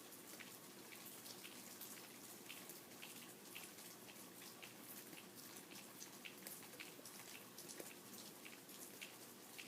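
Rain falling: a faint, steady hiss with many separate drops ticking at an irregular pace.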